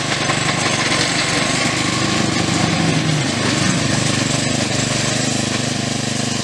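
Small engine of a ride-on 7.25-inch gauge miniature locomotive running steadily.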